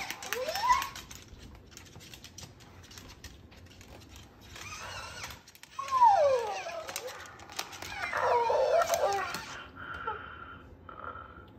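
Electronic plush toy puppy giving recorded dog-like cries through its little speaker: a short rising whine at the start, a long falling whine about six seconds in, and wavering cries around eight to nine seconds.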